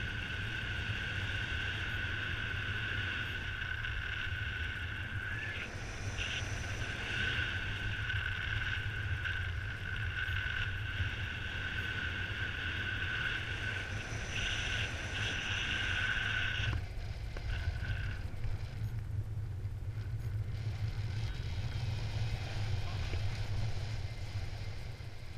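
Steady low rush of wind over the microphone of a camera carried in paragliding flight, with a steady high-pitched tone over it that drops out about 17 seconds in.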